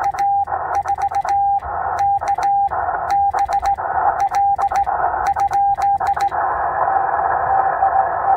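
Morse code sent on a straight key through a Yaesu FT-891 transceiver: the steady sidetone beeps out dots and dashes, with a sharp click at each press and release and the receiver hiss cut out between elements. About six seconds in the sending stops, the receiver hiss returns and a fainter Morse signal comes in.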